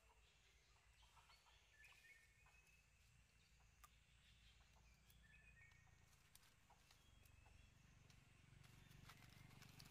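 Near silence: faint outdoor ambience with a few brief, faint high chirps and scattered light ticks, and a low rumble that swells near the end.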